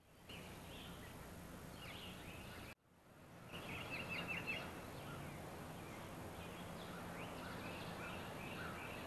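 Woodland birdsong: several birds chirping, with quick runs of rapid notes, over a steady low hum. The sound cuts out suddenly about three seconds in and fades back up.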